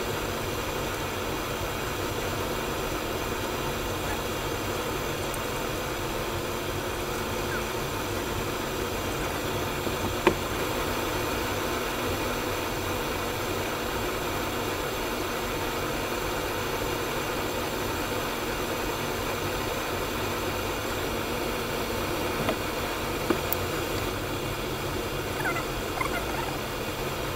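A steady mechanical hum with hiss, like a running fan, unchanging throughout. There is one sharp click about ten seconds in and a few light taps near the end.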